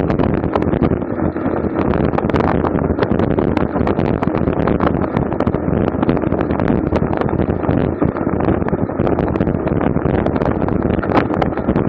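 Steady rush of wind and road noise on a bicycle-mounted camera's microphone while riding at race speed, with many small clicks throughout.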